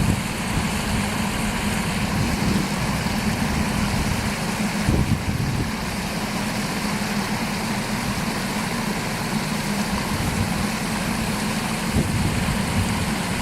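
Steady rush of water falling and splashing in a backyard landscape waterfall.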